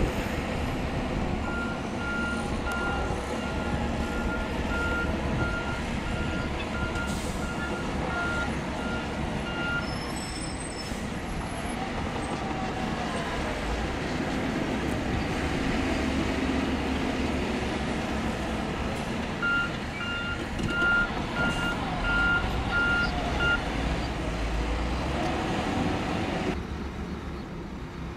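Shantui bulldozer's diesel engine running steadily while the machine works, with its reversing alarm beeping about twice a second for several seconds near the start and again for a few seconds later on.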